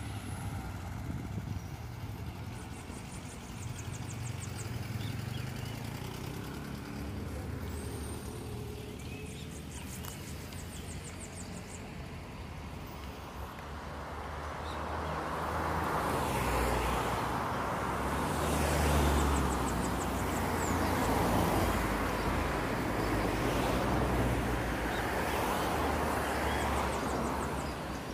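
Road traffic running along the street beside the park: a steady low rumble that swells into a louder rush of passing cars through the second half. A short, rapid, high trill comes now and then.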